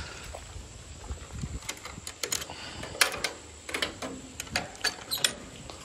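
A run of irregular light clicks and knocks, several close together between about a second and a half in and five seconds in, over faint outdoor background.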